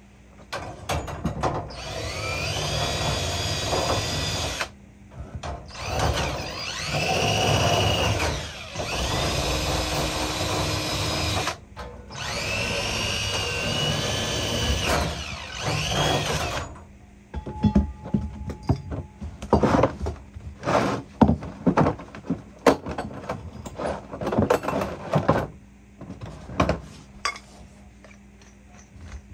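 DeWalt 20V cordless drill running in four long runs of two to four seconds each, its motor whine rising and falling in pitch with the trigger and the load as it works in a furnace's sheet-metal cabinet. About halfway through, the drilling stops and a series of sharp knocks and clicks of tools and metal being handled follows.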